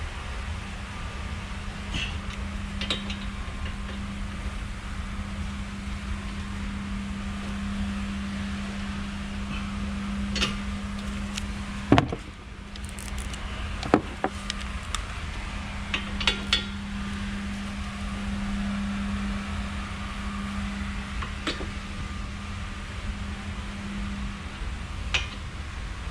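Scattered sharp metallic clicks and knocks of hand tools at work on a car's brake caliper bracket bolts, the loudest about halfway through. Under them runs a steady low hum of shop background noise.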